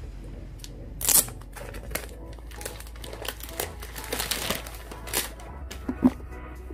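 Plastic packaging on a boxed DVD set crinkling and rustling as it is handled and unwrapped, with scattered small handling clicks; the loudest crinkle comes about a second in.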